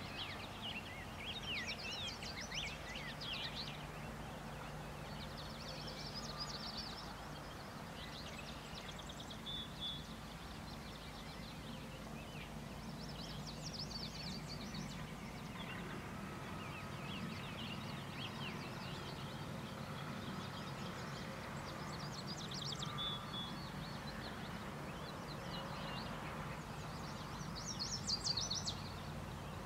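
Songbirds singing in short, quick chirping phrases that recur every few seconds, over a steady low outdoor hum.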